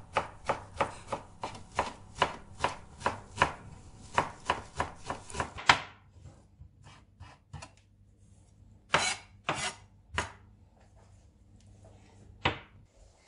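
Chef's knife chopping fresh dill on a cutting board: a quick, even run of about four strokes a second for nearly six seconds, then a few separate strokes later on.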